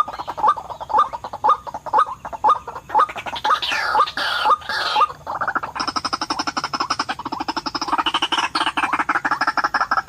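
White-breasted waterhen calling: short rising calls repeated about twice a second. About halfway through they give way to a fast, continuous pulsing chatter.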